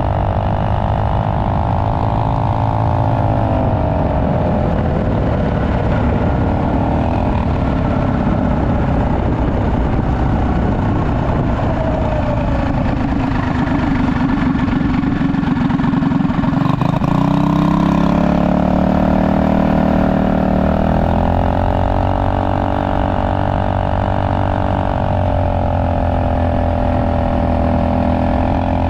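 Trailmaster Hurricane MB200X minibike's Tillotson 225 cc single-cylinder engine running at road speed under the rider. The engine note sags a few seconds in, then climbs again from about the middle as the throttle opens.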